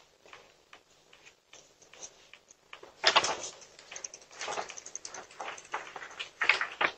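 Soft footsteps, then the rattle and scraping of a bicycle being picked up off a lawn and ridden away, with a string of light clicks. The bike noise starts about three seconds in and is loudest near the end.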